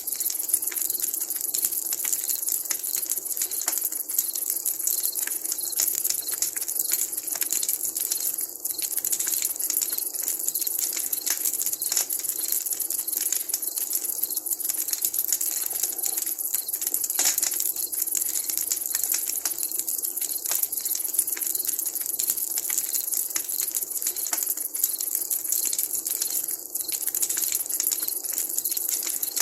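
Wood campfire crackling steadily, a dense run of small pops and snaps over a bright hiss.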